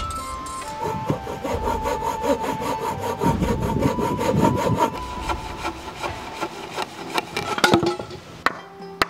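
Wood being sawn by hand in quick, even strokes, ending near the end with a few sharp knocks.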